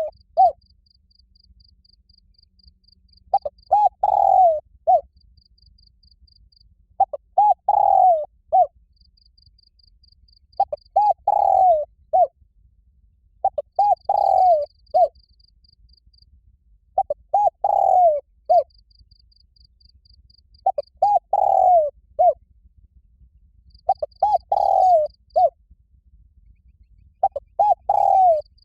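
Spotted dove cooing its loud challenge call, the same phrase repeated about every three and a half seconds: a few short coos, one longer falling coo, then a short closing note. A faint high-pitched insect trill pulses in the gaps.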